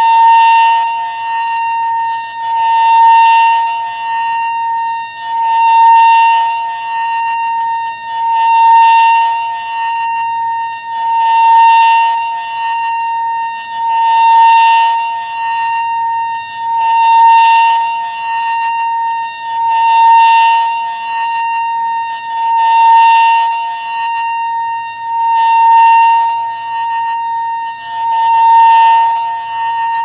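Homemade model tornado siren: a small siren with a blue horn, turned by a LEGO-built rotator. It sounds one steady, unchanging tone that swells and fades about every three seconds as the horn sweeps toward and away.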